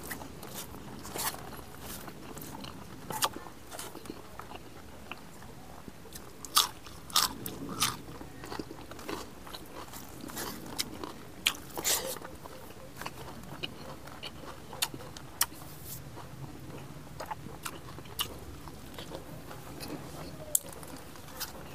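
A person chewing food close to a clip-on microphone, with irregular sharp crunches as he bites and chews.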